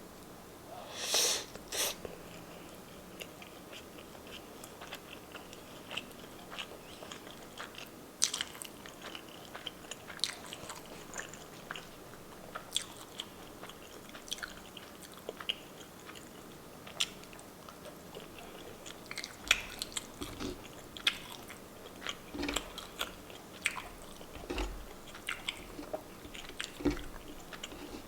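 Close-miked mukbang eating: a person biting and chewing a Filipino breakfast of meats, egg and rice, with many short, sharp mouth clicks scattered throughout. There is a louder burst about a second in.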